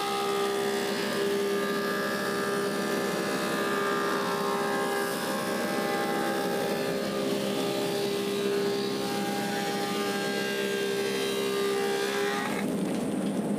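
Woodmaster 725 planer's helical cutterhead planing a walnut slab: a steady whine of several tones over the machine's running noise while the board feeds through. The whine stops near the end as the slab clears the cutterhead, and the planer runs on.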